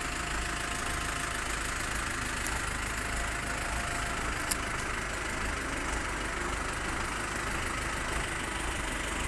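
Mitsubishi truck's diesel engine idling steadily, with a single sharp click about four and a half seconds in.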